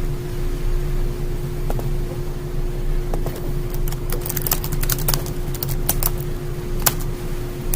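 A steady hum with a few irregular sharp computer clicks, about one every second or so, as text is selected and copied on a computer.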